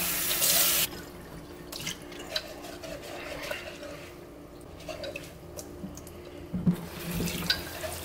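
Kitchen tap running into a ceramic coffee mug in a stainless steel sink, cut back about a second in. A sponge then scrubs inside the mug with small knocks of the mug against the sink, and the water runs again near the end.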